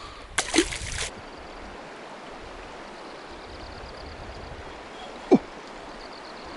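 Shallow river flowing steadily over a stony riffle. Just after the start comes a short splash as a released perch is tossed back into the water, and about five seconds in there is a brief sharp sound falling in pitch.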